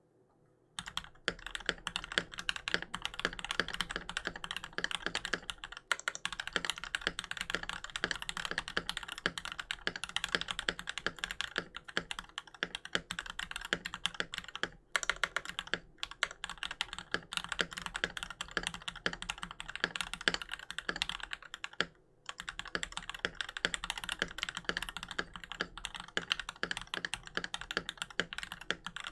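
Fast continuous typing on a Keychron V1 mechanical keyboard with lubed JWICK Black linear switches in a steel plate, under PBT keycaps: a dense run of key strikes, broken by a few short pauses.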